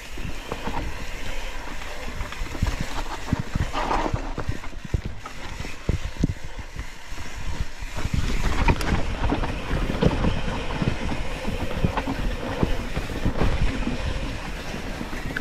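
Mountain bike descending a dirt singletrack at speed: tyres rolling over dirt and leaf litter, with a low rumble and constant irregular rattling and knocking from the bike over bumps. It grows louder and busier about halfway through.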